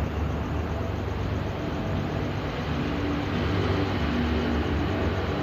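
Steady rumble of toll-road traffic, vehicles passing continuously, a little louder for a couple of seconds in the second half.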